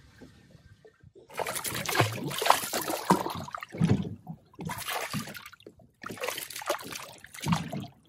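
Choppy lake water lapping and splashing against a boat's hull in irregular surges, starting about a second in.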